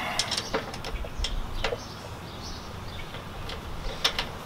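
Hand socket ratchet clicking in scattered short runs as a nut is tightened onto a bracket bolt.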